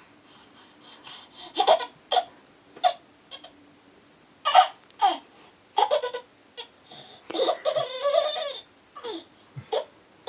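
A baby's vocal noises: a series of short cries and squeals, with one longer, wavering cry lasting over a second about seven seconds in.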